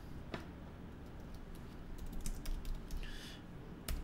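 Scattered keystrokes and clicks on a computer keyboard, a few separate taps, most of them in the second half, as a web address is typed into a browser's address bar.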